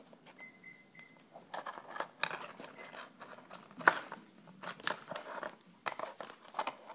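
Clear plastic box clattering and scraping on a wooden floor as a rabbit pushes into it with its nose after vegetables: irregular clicks and knocks starting about a second and a half in, the sharpest one near the middle.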